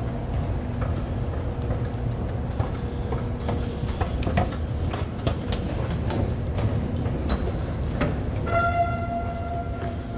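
Subway station ambience: a steady low rumble with scattered clicks and knocks, and a steady humming tone with overtones that comes in about eight and a half seconds in.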